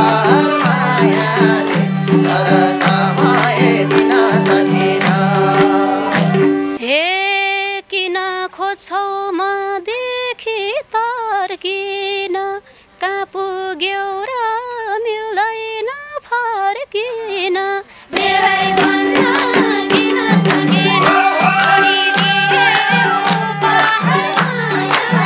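Nepali dohori folk music: madal drums keep a steady beat under harmonium and melody. About seven seconds in the drums drop out for a solo melodic line with sliding, ornamented pitch. The full band with madal returns about eighteen seconds in, with women singing near the end.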